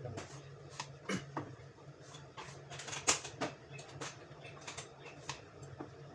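Kitchen knife slicing eggplant on a wooden cutting board: irregular knocks and clicks of the blade and pieces on the board, over a steady low hum.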